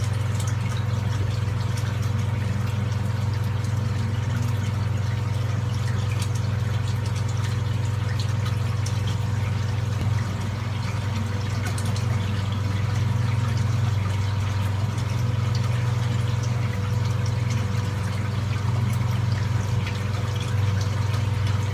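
Steady low hum of a running water pump, with an even hiss of moving water over it.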